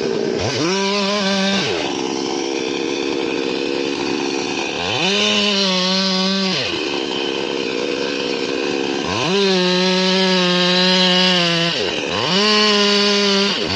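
Chainsaw engine revving up and down. Its pitch climbs to a steady high whine four times: about half a second in, around five seconds, around nine seconds and around twelve seconds. Each time it holds for one to two and a half seconds, then drops back to a lower, rougher note between.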